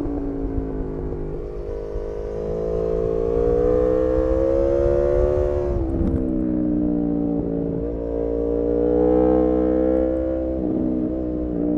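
Aprilia RSV4 Factory's V4 engine under load, its pitch climbing steadily for about six seconds. It drops sharply at a gear change, then climbs again and eases off near the end.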